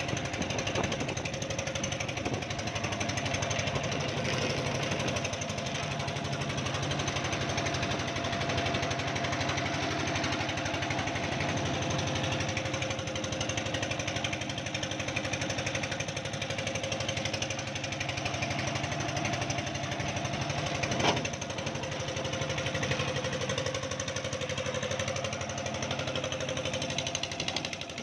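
Concrete mixer machine's engine running steadily with a fast, even beat, and one sharp knock about three quarters of the way through.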